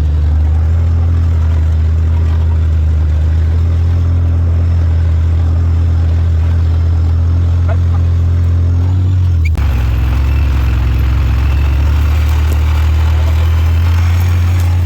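ATV engine running steadily under way, a loud low drone. Near two-thirds of the way through it breaks briefly and then runs on at a slightly higher pitch.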